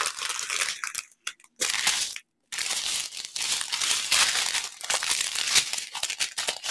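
Small clear plastic bags of diamond painting drills crinkling as they are picked up and shuffled by hand, in several stretches broken by two short pauses about one and two seconds in.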